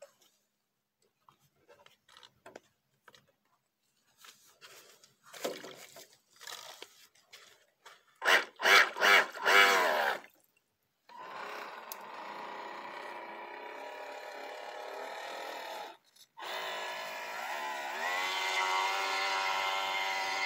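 Kyosho Jackson RC speedboat's electric motor and propeller: faint splashes and clicks at first, then a few short loud throttle blips about eight seconds in, the loudest part. From about eleven seconds a steady whine as the boat drives off, cutting out briefly near sixteen seconds and coming back rising to a higher, steady pitch.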